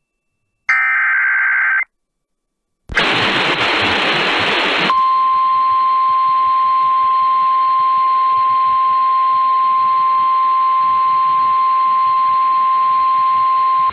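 Weather radio broadcast between warnings: a short burst of digital data tones about a second in, a brief silence, about two seconds of radio static, then the single steady warning alarm tone near 1 kHz for about nine seconds, which cuts off just before the next severe thunderstorm warning is read.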